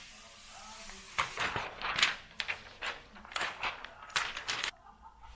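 Hands handling a plastic folding tablet case on an iPad Pro: a quick run of sharp taps, clicks and rustles as the cover flap is folded back, ending abruptly near the end.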